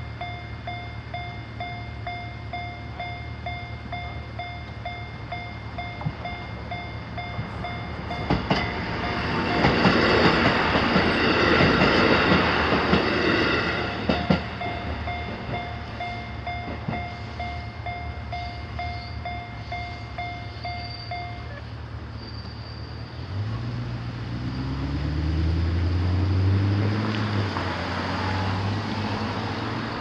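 Railway crossing warning bell ringing in a steady, rapid ding-ding pattern. About a third of the way in, a diesel railcar passes for several seconds and is the loudest sound. The bell stops about two-thirds of the way through, and then a car engine rises in pitch as it pulls away across the crossing.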